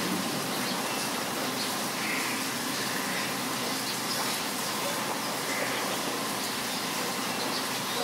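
Heavy rain falling steadily, with a few brief bird calls about two and six seconds in.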